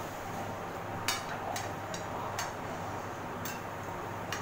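Metal spoons and forks clinking and scraping on ceramic dinner plates as people eat: about five light, separate clinks over a steady background hum.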